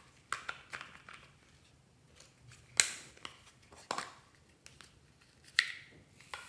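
Small hard plastic lidded box being handled and opened: a handful of separate sharp plastic clicks and knocks, the loudest about three seconds in.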